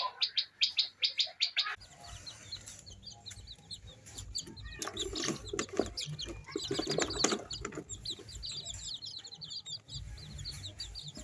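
Small birds chirping: a fast run of sharp chirps, about six a second, in the first two seconds, then lighter, quicker chirping throughout, with a lower, rougher sound mixed in around the middle.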